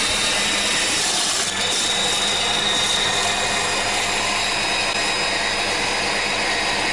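Zelmer 1500 W electric mincer with its shredder-drum attachment running steadily, its motor whining as it grates carrots into shreds.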